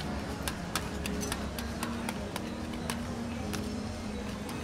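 Metal spatulas clicking and scraping on a frozen steel ice-cream pan as a thin layer of rolled ice cream is spread out: a quick, irregular run of sharp clicks over a low steady background hum.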